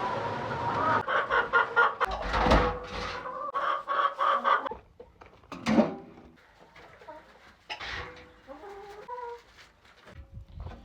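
Backyard hens clucking and squawking, loud and busy for about the first half, then quieter scattered clucks.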